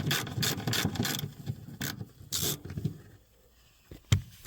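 Ratchet wrench clicking rapidly as it backs out a cover bolt, stopping about a second in. A couple of short scrapes follow, then a single sharp metal knock near the end.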